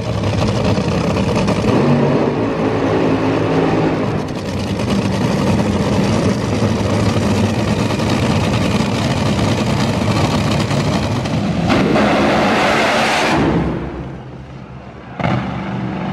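Supercharged nitromethane drag-racing V8 running very loud and rough. About three-quarters of the way through there is a harsher, louder stretch that falls away, and near the end another loud engine sound starts abruptly.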